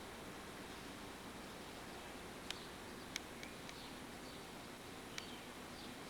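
Faint steady background noise with a few sharp clicks scattered through it and faint, brief high chirps.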